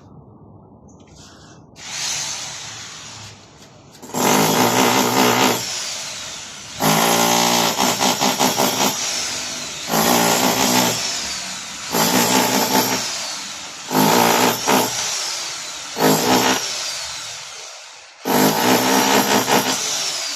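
A power tool run in repeated short bursts, about one every two seconds, each starting suddenly and tailing off.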